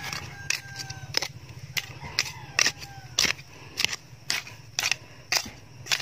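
A metal digging blade striking soil and stones around a young tree's base, sharp strikes about twice a second. A rooster crows faintly twice in the first half.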